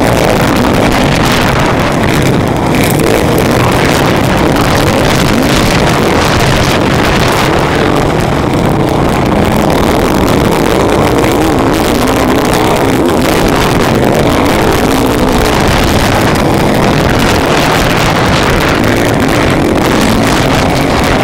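Motocross bike engine running hard at race speed, revving up and down through the corners, loud and close from a camera mounted on its own handlebars, with wind rushing over the microphone.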